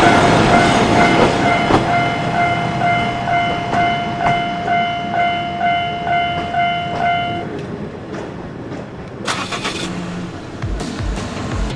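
Japanese level-crossing warning bell ringing in a rapid, regular repeating tone over the rumble of a passing Akechi Railway diesel train. The train noise fades and the bell stops about two-thirds of the way through, followed by a brief rattle.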